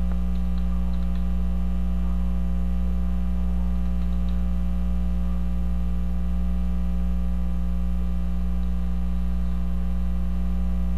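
Steady electrical mains hum with a stack of buzzing overtones, picked up by the recording microphone. A few faint keyboard keystrokes come in the first few seconds as a phone number is typed.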